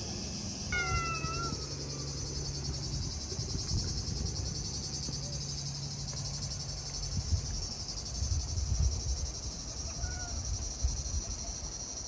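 Cicadas singing, a steady high-pitched buzz that goes on throughout. A short falling call sounds about a second in.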